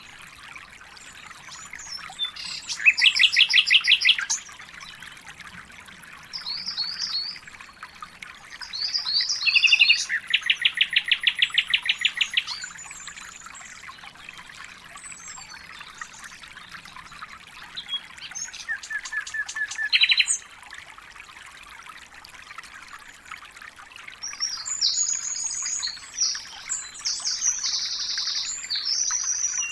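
Songbirds singing in separate phrases, three of them running into a fast trill of rapidly repeated notes, with shorter chirps in between and a busier run of chirping near the end, over a steady background hiss.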